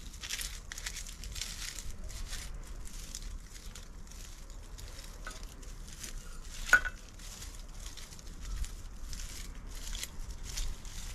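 Irregular short rustling and crinkling strokes from garden clearing work, with one sharp click about seven seconds in.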